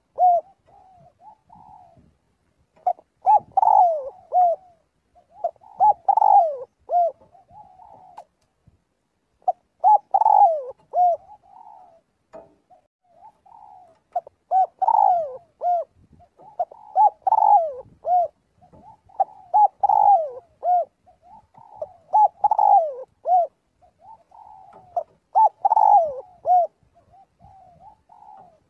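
Spotted dove cooing: phrase after phrase of short, falling coos, one phrase about every two and a half seconds.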